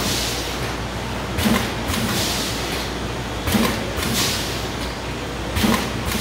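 Vertical form-fill-seal granule pouch packing machine running through its cycle, three cycles about two seconds apart: each a sharp clack followed by a short hiss, over a steady machine hum.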